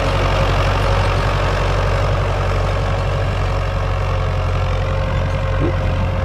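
Diesel engine of a Ford farm tractor of about 70 horsepower, running steadily under load while pulling a disc plough through dry soil.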